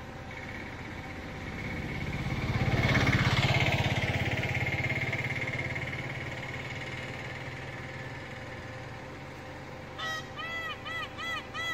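Indian peafowl giving a run of short, loud, honking calls, about two a second, starting near the end. Before that, a low rumble with a steady high whine swells up, loudest about three seconds in, then fades away.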